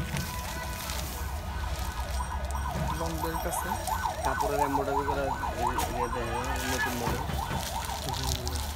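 A siren-like wailing tone that warbles rapidly up and down, several times a second, starting about three seconds in and fading near the end, over a steady low hum.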